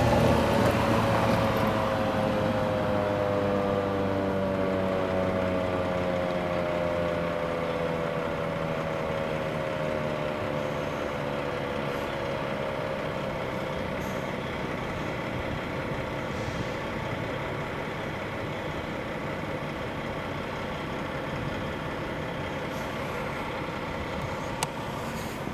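T-128 outdoor warning siren winding down at the end of its test, its several tones sliding slowly lower and fading out over about ten seconds. A steady background hum remains, with a single click near the end.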